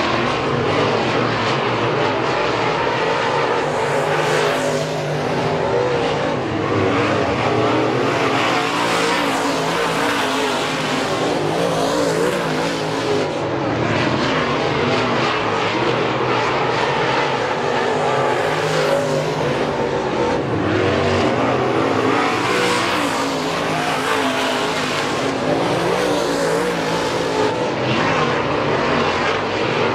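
Dirt-track race car engines running hard around the clay oval, in a steady din that swells every few seconds as cars pass the grandstand.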